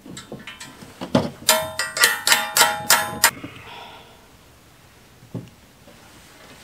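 Heavy steel backhoe thumb parts being handled on a work table: a thud, then a quick run of about six loud, ringing metal clanks, and one short knock later.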